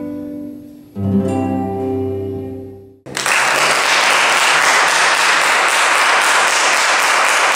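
The closing chord of a small acoustic ensemble of violin, nylon-string guitar and double bass: a last chord with a deep bass note is struck about a second in and dies away. About three seconds in, loud, steady applause breaks out and carries on.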